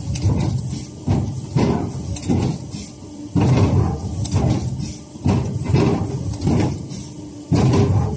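WETRY M1050 CNC waste-stripping machine running, its stripping head stepping over a die-cut tag sheet and pushing out the waste. It makes a run of sudden mechanical strokes, about two a second and unevenly spaced, each fading quickly, over a faint steady hum.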